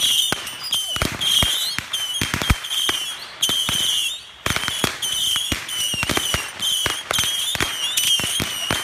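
Fireworks going off in quick succession: a dense run of sharp pops and bangs, with a brief lull about four seconds in.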